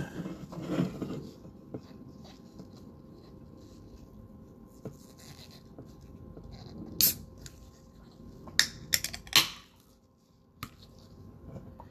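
Quiet handling of a cold drink as it is opened: a few short, sharp snaps and clicks, the loudest about seven and nine and a half seconds in.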